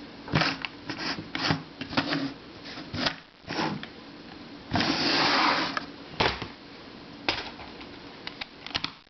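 Puzzles and boxes being handled and moved on a shelf: a scatter of clicks and taps, with a scraping slide lasting about a second near the middle.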